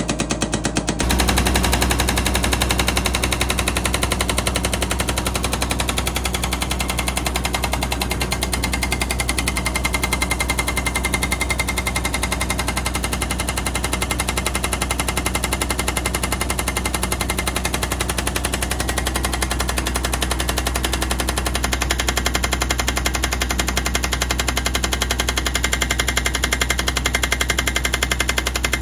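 Hydraulic breaker on a 2-ton mini excavator hammering rock: a rapid, steady stream of blows, stepping up in loudness about a second in.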